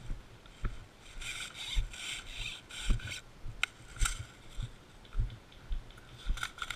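Footsteps thudding about twice a second as a player moves, with clothing or gear rubbing and scraping against the body-worn microphone for a couple of seconds, and a few sharp clicks.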